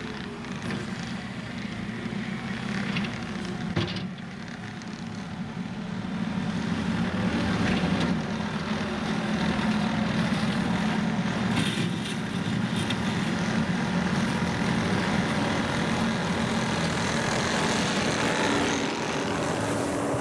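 New Holland C232 compact track loader's diesel engine running, getting louder about six to eight seconds in as the machine is throttled up and worked.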